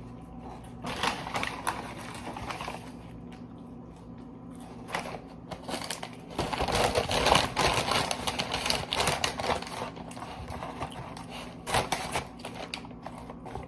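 McDonald's takeout packaging being handled: irregular rustling and crinkling, heaviest from about six to ten seconds in, over a faint steady low hum.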